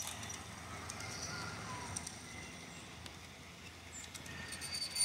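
Small birds chirping in the open air, with short high chirps and whistled notes that slide in pitch. Underneath are a low steady hum and a few faint clicks.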